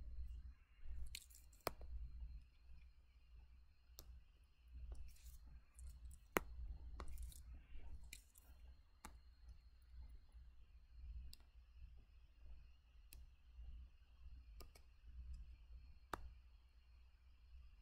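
Sharp single clicks scattered every second or two as lines are drawn on a computer, with a few brief soft rustles in the first half and a low steady hum underneath.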